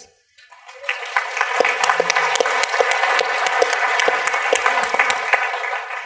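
Audience applause: many hands clapping. It builds quickly about half a second in, holds steady, and eases off near the end.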